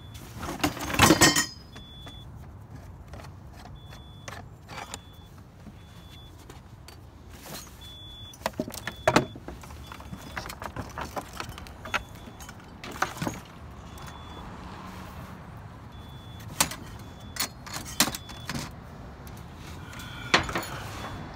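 Scattered clanks and clinks of scrap metal and junk being handled and shifted, loudest about a second in, over a steady low rumble.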